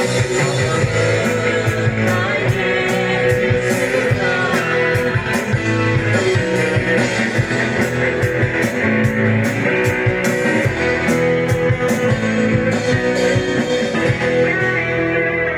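Live praise and worship band playing a song at a sound check: guitar over a steady beat of drums and cymbals.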